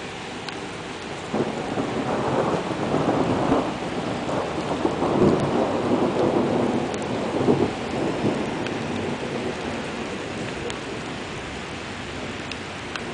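Rain falling on floodwater as a steady hiss, with a rumble of thunder that swells about a second in, surges several times and dies away over the next seven seconds or so.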